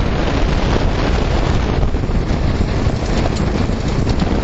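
Wind buffeting the onboard microphone of an engineless billy kart coasting down a dirt road, over a steady rumble of its wheels on the dirt with small knocks and rattles from the bumps.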